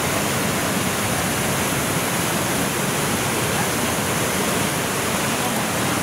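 Steady, loud rush of a waterfall on the Brule River, heard up close: whitewater pouring over a rock ledge into a churning pool.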